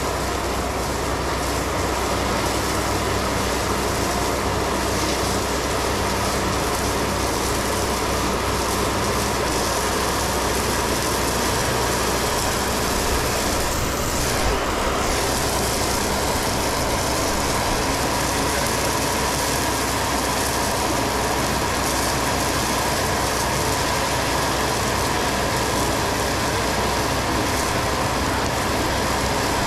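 Stone slinger truck running steadily, its conveyor belt throwing a continuous stream of 3/4-inch crushed stone that lands on the trail, heard as a steady rush of gravel over the truck's engine.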